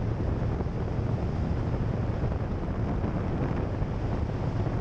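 Steady wind rushing over the microphone of a Yamaha Drag Star 1100 V-twin motorcycle cruising at a constant speed, with the engine's low drone underneath.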